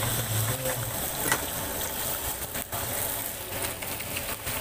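Battered mackerel and shrimp deep-frying in two woks of hot oil: a steady sizzle with scattered crackles.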